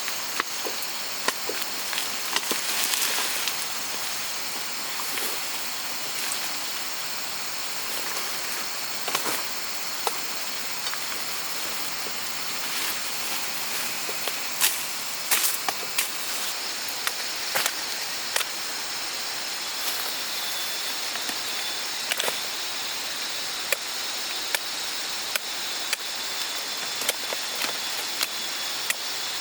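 Irregular sharp knocks and snaps over a steady high-pitched hiss.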